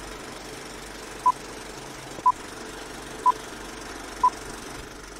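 Film-leader countdown sound effect: four short, high beeps, one a second, starting about a second in, over a steady running noise.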